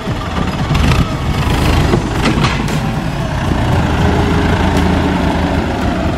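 Four-wheel-drive farm tractor's diesel engine running steadily under load as it pushes mud with its front blade, with a few short knocks scattered through.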